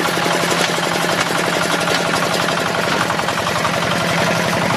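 Walking tractor's single-cylinder diesel engine running under load as it pulls a laden trailer away, with a rapid, even beat of firing strokes.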